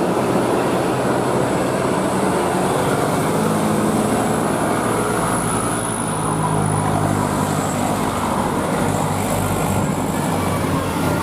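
A heavy road vehicle running, a steady rumble of engine and road noise, with a low engine drone growing stronger from about three seconds in until near the end.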